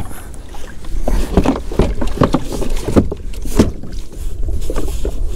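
Irregular knocks and clunks on a plastic kayak as the pedal drive is worked down into its well, over a low rumble. The water is too shallow for the drive to go down.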